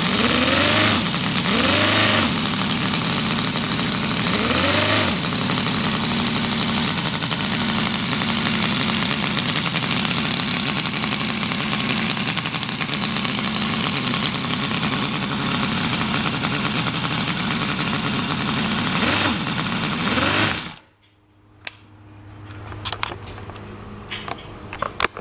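Miniature scale-model Ford 300 inline-six gasoline engine running. Its throttle is blipped three times in the first five seconds, each time with a rising-then-falling pitch, and then it runs steadily. It is briefly revved again and shuts off abruptly about 21 seconds in, followed by a few faint clicks.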